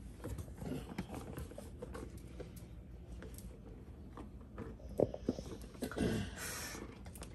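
Quiet handling noise as a smoked chuck roast is handled on parchment paper with silicone gloves: scattered soft taps and clicks, a sharper click about five seconds in, and a short paper rustle a little after six seconds.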